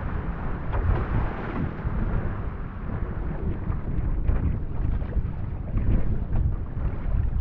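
Wind buffeting the microphone over water rushing along an outrigger canoe's hull, with scattered splashes from the chop and paddle strokes.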